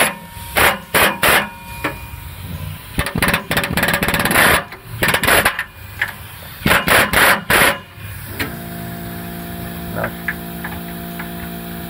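Pneumatic air hammer driving a punch into an O2 sensor removal socket, hammering in three loud bursts of rapid blows over about eight seconds as a rusted-in oxygen sensor starts to turn. After that a quieter steady hum.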